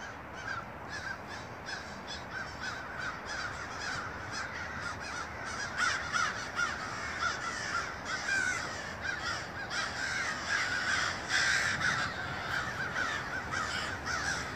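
A large flock of crows cawing, with many calls overlapping without a break; the chorus grows busier about halfway through.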